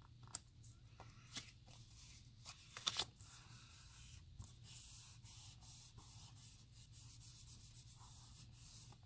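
Hands pressing and rubbing two freshly glued pieces of 80 lb cardstock together to set the bond: a faint papery rubbing, with a few light taps in the first three seconds.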